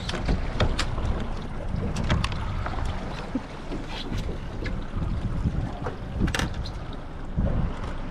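Wind on the microphone and a low rumbling water-and-hull noise aboard a small fishing boat, with scattered short sharp clicks and ticks.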